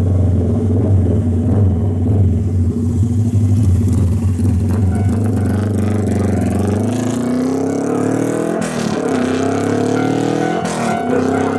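A vehicle's engine running with a steady deep hum, then accelerating: its pitch climbs, drops back and climbs again three times, about two seconds apart.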